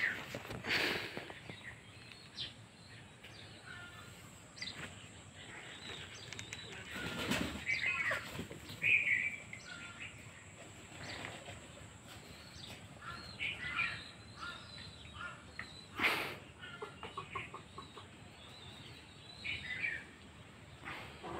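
Domestic chickens clucking and calling in short scattered notes, with a few louder brief noises about a second in, around seven seconds in and around sixteen seconds in.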